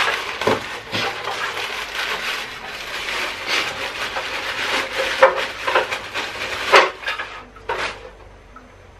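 Clear plastic bag crinkling and rustling as the dust-extraction hood is unwrapped from it, with a few sharp knocks of the part being handled. It dies down near the end.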